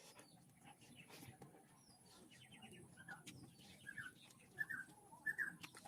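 A bird calling with short repeated chirps, about one every half to three-quarters of a second in the second half and growing louder, over faint scattered clicks.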